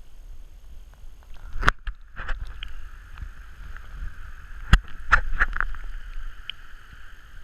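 Several sharp knocks and clicks in short groups, the loudest about halfway, over a steady low rumble and a hiss.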